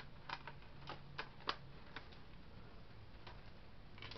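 Faint, irregular plastic clicks and taps of Blu-ray discs and a clear multi-disc case being handled, as a disc is lifted off its hub and the case's hinged tray is moved; the sharpest click comes about one and a half seconds in.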